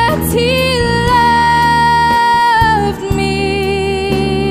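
Slow gospel song: a melody line holds one long note, then moves to a lower held note about three seconds in, over a steady sustained accompaniment.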